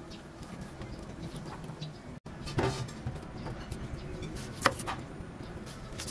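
Large kitchen knife cutting raw pork belly and then a white onion on a thick wooden chopping board, with a few sharp knocks of the blade against the board, the loudest about halfway through.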